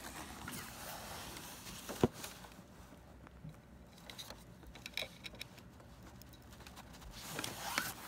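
Handling noise of a cable connector being fitted into the port on the back of a computer monitor: rubbing and fumbling, with one sharp knock about two seconds in and a few lighter clicks later.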